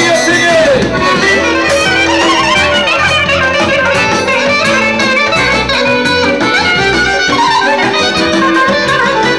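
Loud dance music with an ornamented lead melody gliding up and down over a steady, repeating bass beat.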